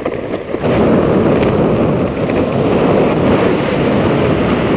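Loud, steady rush of wind buffeting a skydiver's helmet-camera microphone in the airstream, briefly weaker in the first half-second.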